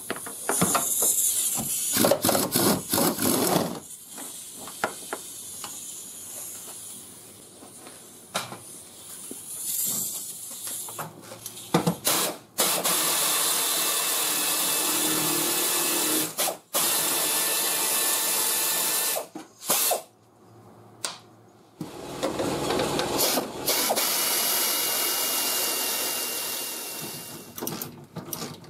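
Pneumatic air ratchet running in long steady runs of several seconds, heavy with air hiss, backing out fender bolts. Shorter bursts and sharp tool knocks come between the runs.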